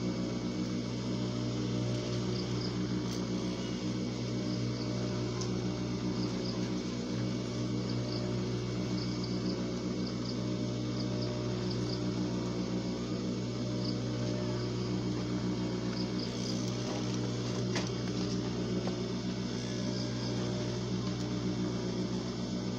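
Industrial sewing machine's electric motor running idle with a steady low hum, the needle not stitching. Faint short high chirps come and go over it.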